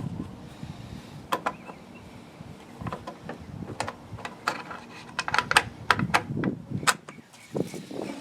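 Plastic side cover of a chainsaw being fitted back over the bar and chain: irregular clicks and knocks of plastic and metal parts being handled and seated.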